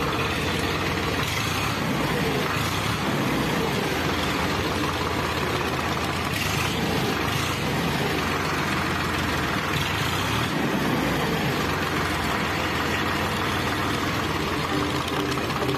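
Eicher 551 tractor's three-cylinder 3300 cc diesel engine running steadily, heard close to its upright exhaust muffler. The owner rates the sound as very good.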